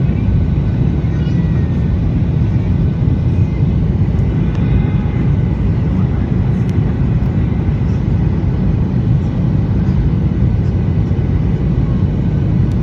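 Steady low rumble of an airliner's engines and airflow heard from inside the passenger cabin, with faint voices in the background.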